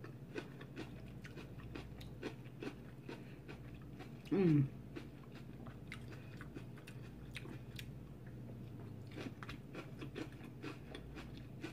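A person chewing raw pepper pieces close to the microphone: a run of soft, crisp crunching clicks, with one short falling hum of the voice about four seconds in.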